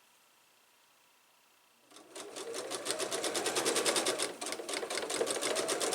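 Sewing machine starting about two seconds in, picking up speed, then running at a fast, even stitch as quilt pieces are sewn together.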